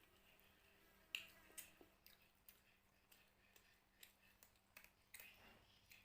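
Faint eating sounds: a scatter of short mouth clicks and smacks, the sharpest about a second in, over a low steady hum.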